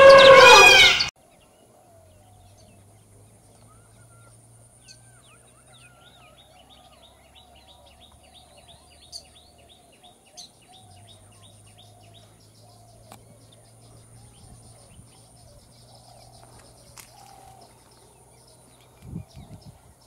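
Loud intro music for about the first second, cutting off suddenly. Then faint wetland ambience: small birds chirping in quick series, a steady high insect trill and a faint low hum, with a couple of soft bumps near the end.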